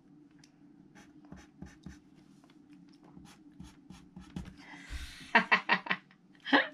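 Mechanical pencil sketching on paper: short, scratchy strokes, several a second. About five seconds in comes a breathy rush, then a quick run of about five knocks and one more near the end, louder than the pencil.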